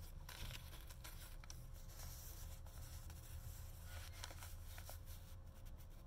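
Faint rustling of paper as pages and folded paper inserts of a handmade journal are handled and turned, with a few soft clicks, over a low steady hum.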